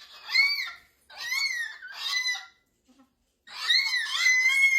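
Pet cockatoo vocalizing in a run of four loud calls, each rising and falling in pitch, with a pause of about a second before the last, longest one.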